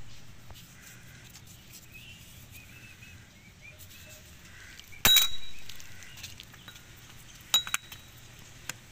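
Metal A/C compressor clutch parts clinking as they are handled: one sharp clink with a short ring about five seconds in, and a second clink about two and a half seconds later.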